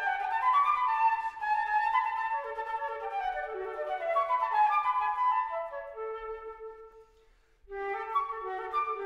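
Instrumental background music carrying a melody of separate pitched notes; it fades almost to silence about seven seconds in and starts up again a moment later.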